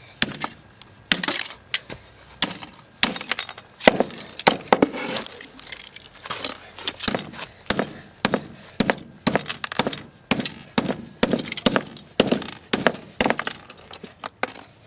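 A toy car being smashed with repeated hard blows, roughly one or two a second, cracking and breaking apart.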